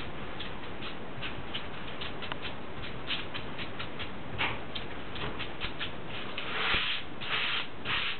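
A long, thin rolling pin rolling out phyllo dough on a floured table: light, irregular clicks and scratchy rubbing from the pin and hands, with a few louder rustling sweeps near the end.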